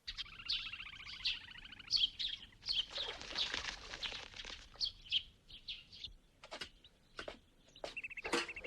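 Birds chirping and trilling in short repeated calls, with a brief hiss about three seconds in and a few sharp ticks in the second half.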